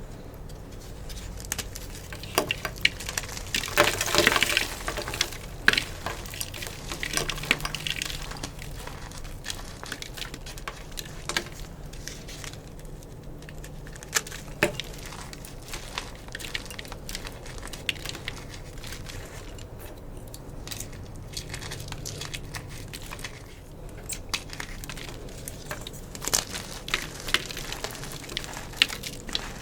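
Gym chalk being crushed: crisp crunching and crumbling crackles, densest about four seconds in, with scattered sharp snaps after and another run near the end.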